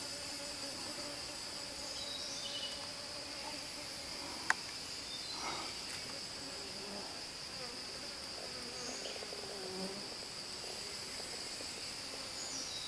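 Steady high-pitched drone of forest insects, with a few faint short chirps and a single sharp click about four and a half seconds in.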